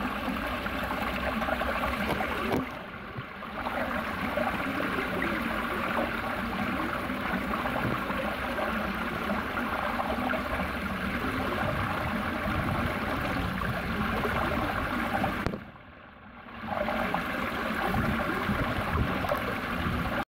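Shallow water rushing steadily over granite blocks in a stone channel. The sound drops away briefly twice, a few seconds in and again near the end.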